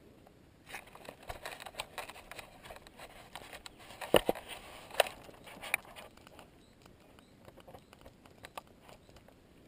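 Knocks, clicks and scraping of a GoPro camera being handled and fitted to a helmet, loudest around four and five seconds in, then fainter scattered ticks.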